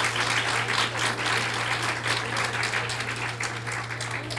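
Audience applauding, the clapping gradually fading, over a steady low electrical hum.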